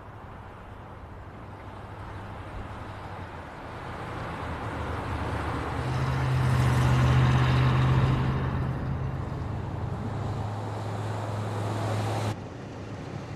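A car drives past: its engine hum and tyre noise swell to a peak and fade away, the engine note dropping as it goes by, then cut off abruptly near the end.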